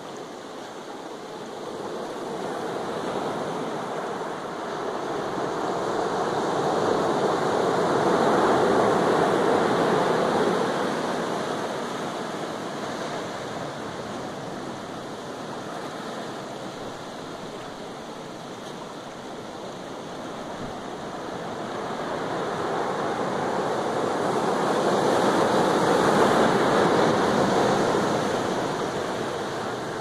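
Pacific Ocean surf breaking and washing up a sand-and-cobble beach, a steady rushing that swells and fades twice, loudest about a third of the way in and again near the end.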